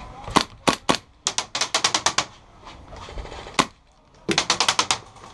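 Gas blowback airsoft gun firing: three single shots, a quick burst, one more single shot, then a longer burst near the end, each shot a sharp crack.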